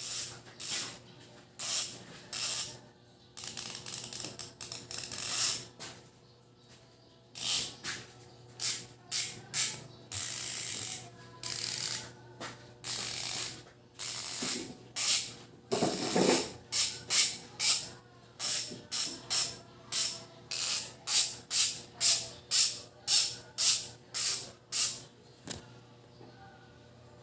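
HASSNS 7PRO six-pawl mountain-bike rear hub freewheeling: the pawls ratchet in a loud, rapid clicking buzz as the freehub is spun in many short bursts, with a few longer unbroken spins.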